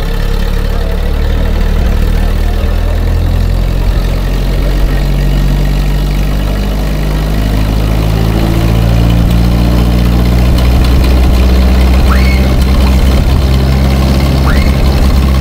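1928 Ford Model A four-cylinder flathead engine on a homemade tractor idling steadily, its speed picking up a little about halfway through.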